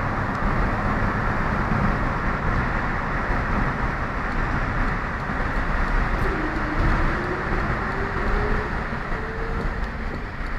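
Steady road and engine noise of a car driving on a motorway, heard from inside the cabin. From about six seconds in, an engine note climbs slowly in pitch for a few seconds.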